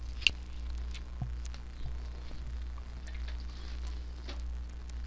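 Small clicks and taps of hands handling a circuit board expansion module and its wires, with one sharper click about a quarter second in, over a steady low electrical hum.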